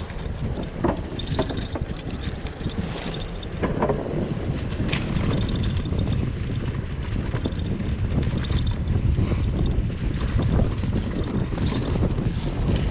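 Wind buffeting the microphone as a heavy low rumble that gets louder about four seconds in, with a few scattered clicks and ticks.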